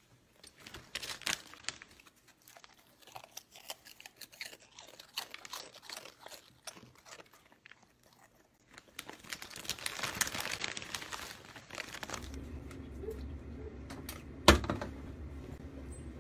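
A dog crunching and chewing a hand-fed snack in irregular crisp bites, with a plastic wrapper crinkling more densely near the end of the eating. Then a steady low hum sets in, with one sharp click a couple of seconds later.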